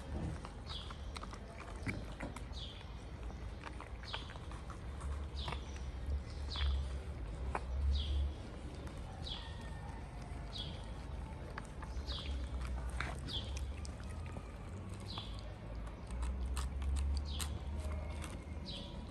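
Cats chewing and crunching wet food and dry kibble from plastic tubs, with small clicks throughout. A bird chirps again and again in the background, a short falling note about once a second, over a low steady rumble.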